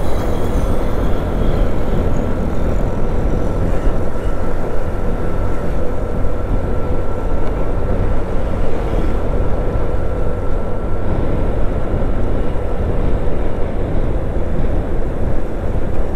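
Steady engine and road noise of a moving vehicle, an even drone with a heavy low rumble and a faint steady hum.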